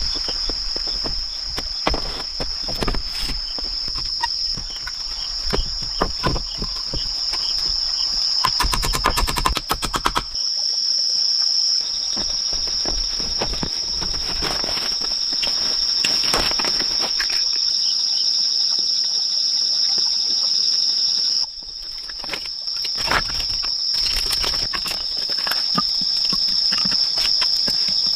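Steady high-pitched drone of insects, crickets or cicadas, with scattered clicks and knocks over it. The background changes abruptly twice.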